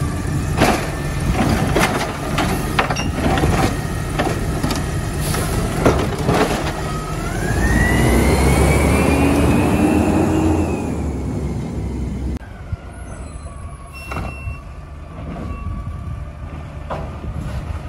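Mack automated side-loader garbage truck emptying a cart: a run of clanks and knocks as the grabber arm dumps the cart and sets it down. Then the engine revs with a hydraulic whine that rises, holds and falls away as the arm cycles and the truck pulls off. It turns quieter about twelve seconds in, with one more clank.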